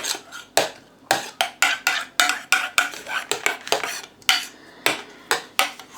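A spoon stirring and scraping round a container, clinking against its sides about two to three times a second while food colouring is mixed into an ice-cream mixture.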